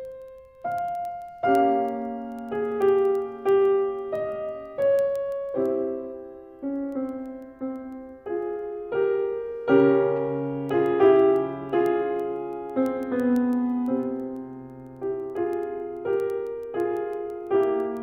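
Solo piano music: slow, separate notes and chords, each struck and left to fade.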